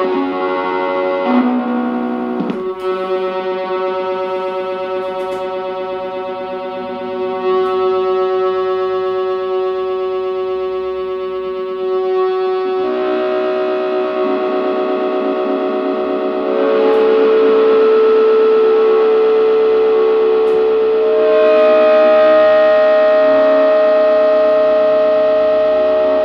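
Layered, looped guitar played through effects, forming a drone of sustained, overlapping held notes. New held tones enter about halfway through and again at about two-thirds, and the drone grows louder from there.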